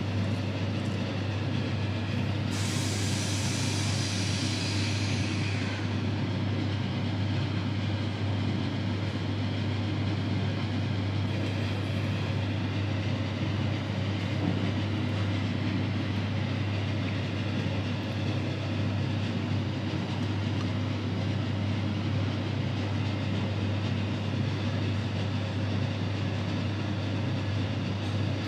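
Steady low hum of a teppanyaki restaurant's room noise. About two and a half seconds in, a hiss starts and fades out over about three seconds.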